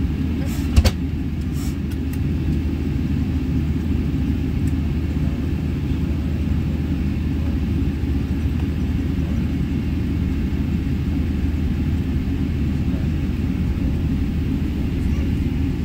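Inside the cabin of a Boeing 777-300ER taxiing after landing: a steady low rumble and hum from the twin GE90 engines at idle and the wheels rolling over the taxiway. A few sharp clicks come in the first two seconds, one louder than the rest.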